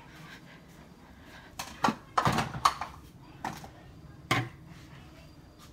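A few sharp knocks and clatters of things being handled in a kitchen, loudest in a quick cluster about two seconds in, with a lighter knock a little later and a last sharp one past four seconds.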